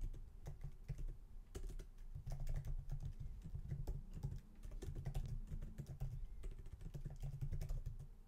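Typing on a computer keyboard: a quick, irregular run of key clicks with dull thuds beneath them.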